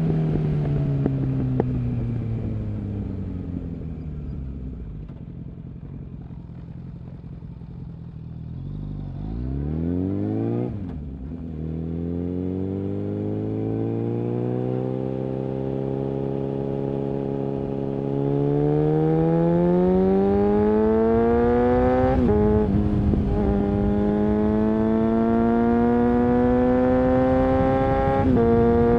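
Suzuki Bandit 650's inline-four engine through an aftermarket Mivv exhaust on the move: the engine note falls as it slows for the first few seconds, then rises again as it accelerates. Brief breaks in the note about a third of the way in, near two-thirds and near the end are gear changes, and the exhaust gets louder as the throttle opens wider past the midpoint.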